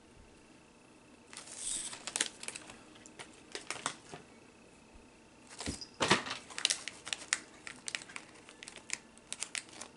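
Plastic candy packaging crinkling and crackling, starting about a second in, in irregular bursts of sharp clicks.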